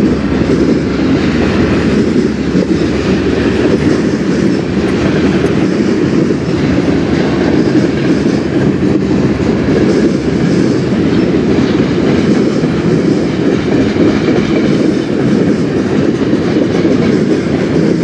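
Freight cars of a long mixed freight train rolling past at close range: the steady noise of steel wheels running on the rails, with no break.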